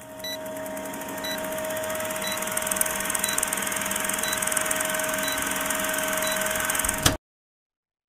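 Vintage film countdown leader sound effect: a film projector's steady whirring hiss with a low hum, and a short high beep once a second, one for each number. It rises in level over the first second and cuts off suddenly about seven seconds in.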